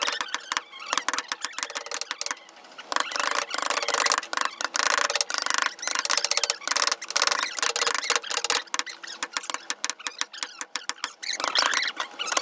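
A wooden mallet tapping a carving chisel into wood in quick, irregular strokes, chips splitting off. A steady machine-like noise runs underneath from about three seconds in to about nine seconds in.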